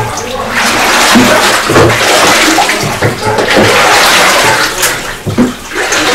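Liquid glaze sloshing and churning in a large earthenware vat as it is stirred with a long wooden paddle, in uneven strokes.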